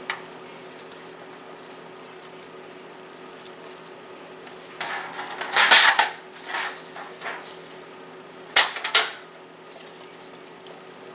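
A utensil scraping and knocking against a metal pot and thin aluminium foil pie pans as mashed sweet potato is scooped and dropped in. The clatter comes in two short clusters, about five and about eight and a half seconds in, over a steady low hum.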